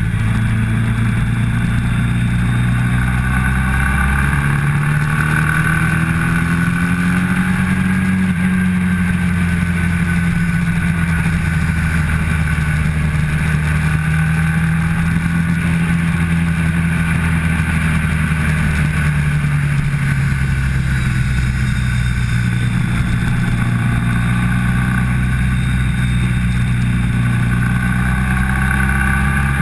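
Motorcycle engine heard from onboard at speed, running hard through a series of corners. Its pitch climbs a few seconds in, holds, drops back about two-thirds of the way through and rises again near the end.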